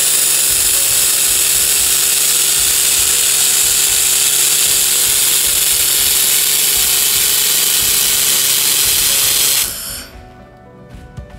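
Handheld fiber laser welder welding stainless steel with filler wire: a loud, steady hiss that cuts off suddenly near the end.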